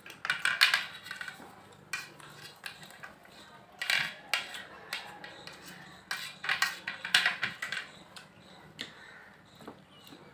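Forks scraping and clinking against plates as the last of the noodles are picked up. It comes in irregular bursts, loudest about half a second in, again around four seconds, and between about six and a half and seven and a half seconds.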